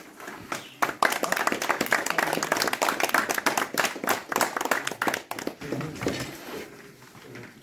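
A small audience applauding: the clapping starts about a second in and dies away over the last couple of seconds.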